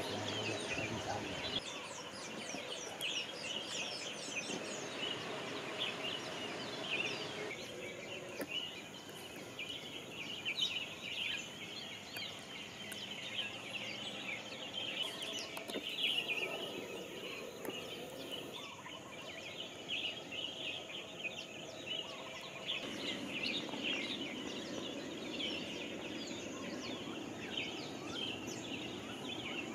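Many small birds chirping and calling at once, a dense chorus of short, high calls.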